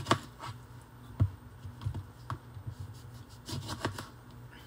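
Kitchen knife cutting oranges in half on a cutting board: irregular sharp knocks as the blade meets the board, with faint scraping in between. There are about half a dozen knocks, the loudest at the very start and about a second in, and a quick run of them near the end.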